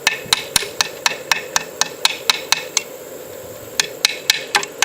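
Rapid light taps of a 3D-printed plastic hammer on a nail in wood, about four a second, pausing briefly and then starting again near the end. The hammer is so light that it barely drives the nail.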